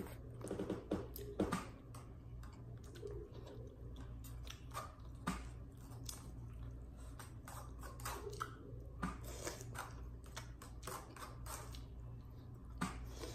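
A person chewing and eating chicken tinola by hand, with irregular small clicks and mouth smacks, over a steady low hum.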